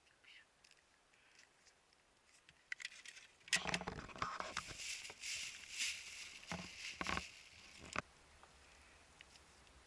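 Fishing tackle handled on a tackle-box lid: a few faint clicks at first, then from about three and a half seconds in a busy run of rustling and clicking as the feeder rig and line are moved about, ending in a sharp click.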